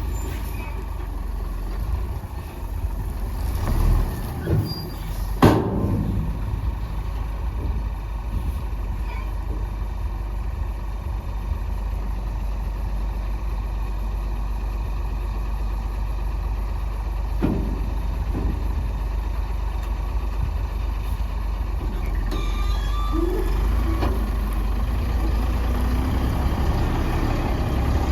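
Heavy diesel earthmoving machinery or dump trucks running steadily with a low rumble, with a sudden sharp sound about five and a half seconds in and a few smaller knocks later on.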